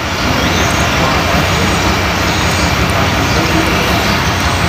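Steady mechanical drone, like a running engine, with a low hum underneath and no pauses.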